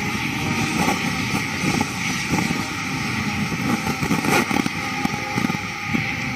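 Steady rain and wind noise, with a military band playing a national anthem faintly underneath.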